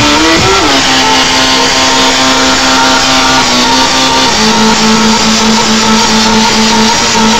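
Keytar synthesizer lead playing long held notes over loud electronic club music, with a bend up and back near the start, then two small steps down in pitch around four seconds in.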